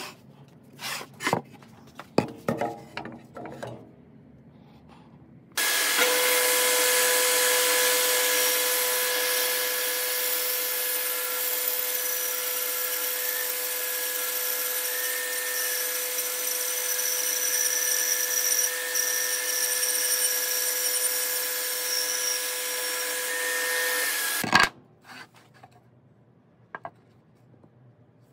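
A few wooden knocks and clicks as pieces are handled. Then a power tool starts at full speed, runs steadily on wood for about nineteen seconds without changing pitch, and cuts off suddenly.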